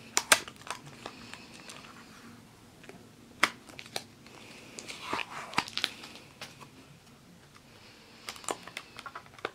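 Hands working a small cardboard trading-card box open: scattered light clicks and taps with soft rubbing and crinkling of cardboard and tape.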